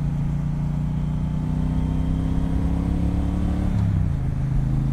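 2018 Triumph Bonneville Speedmaster's 1200 cc parallel-twin engine pulling under way, its pitch rising slowly. A little under four seconds in the pitch drops, then holds steady at the lower note.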